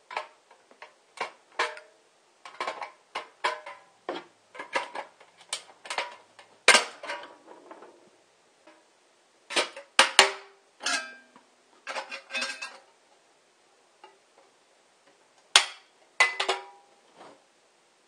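Pliers gripping and snapping the thin bridges of steel left between a ring of drilled holes in the side of a steel can, breaking out a round disc. The sound is an irregular run of sharp, tinny metallic clicks and creaks in clusters, with two short pauses, about eight and fourteen seconds in.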